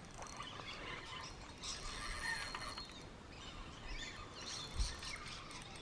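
Birds chirping and calling over outdoor background noise, with one dull low thump a little before the end.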